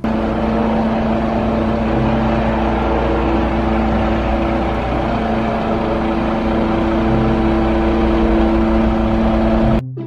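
Diesel engine of a truck-mounted aerial work platform (skylift) running steadily while the boom lifts the basket, a constant hum over a low rumble. It stops abruptly near the end.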